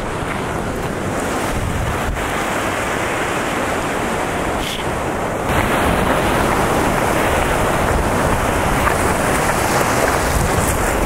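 Ocean surf washing in over a beach, with wind buffeting the microphone; the wash grows louder about halfway through.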